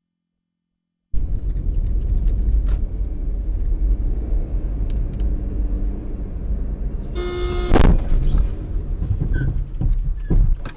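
Car dashcam sound: a steady low road and engine rumble that cuts in about a second in. About seven seconds in, a car horn sounds briefly, followed at once by a loud bang.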